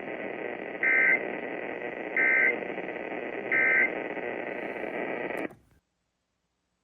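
NOAA Weather Radio broadcast over a receiver's steady hiss, sounding the EAS end-of-message code: three short digital data bursts about 1.3 seconds apart, marking the end of the alert message. The hiss cuts off suddenly about five and a half seconds in.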